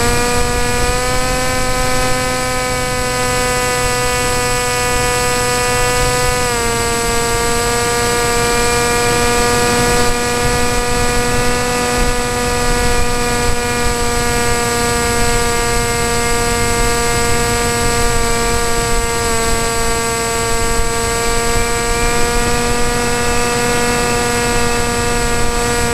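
Model aircraft's motor and propeller heard from close by, from the camera riding on it: a steady buzzing whine that drops a little in pitch about six seconds in, dips slightly again later and then rises back near the end.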